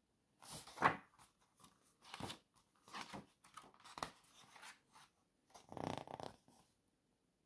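Stiff paper pages of a collector's album being handled and turned by hand: a series of short rustles and flaps, the loudest about a second in and around six seconds in.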